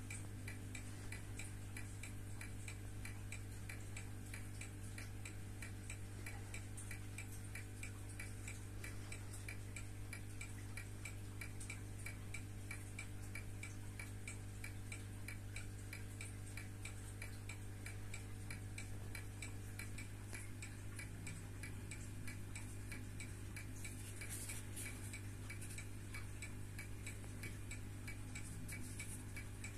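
1970s Citizen mechanical wristwatch ticking fast and evenly, several ticks a second: the watch is running.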